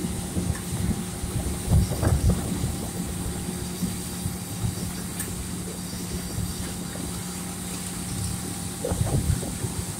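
John Deere S770 combine running while its unloading auger pours soybeans into a grain truck: a steady machine drone with a held hum, and louder low rumbles around the first couple of seconds and again near the end.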